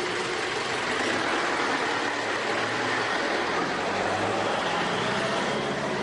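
Pickup truck engine running as the vehicle pulls away and drives off, over a steady hiss of outdoor noise.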